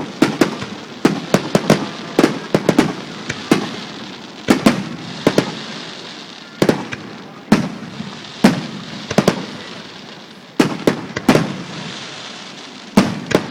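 Aerial fireworks bursting: a run of sharp bangs at irregular spacing, some in quick clusters of two or three and some alone, each with a short rumbling echo.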